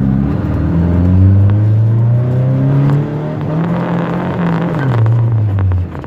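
Fiat 147's four-cylinder petrol engine through a modified, homemade exhaust, heard from inside the cabin while driving. The note rises as the car accelerates, dips briefly about halfway, climbs again, then falls away as the throttle is lifted near the end.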